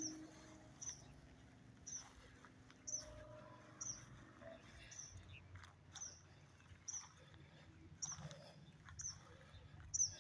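A bird repeating a short, high, falling chirp about once a second.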